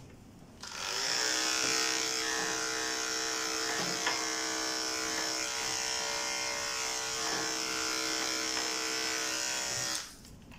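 Electric pet hair clippers switched on, the motor spinning up to a steady buzz while clipping a cat's fur, then switched off near the end.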